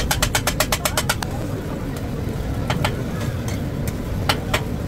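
A quick, even run of sharp clicks, about eight a second, stops a little over a second in. A handful of scattered clicks follow later. Under them runs a steady low rumble of background noise.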